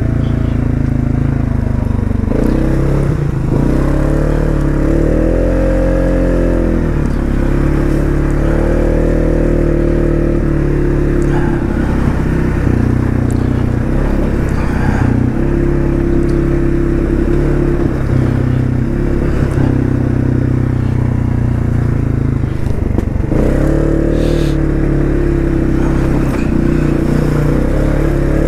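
Polaris Sportsman 570 ATV's single-cylinder four-stroke engine running under way, its pitch rising and falling again and again as the throttle is opened and eased.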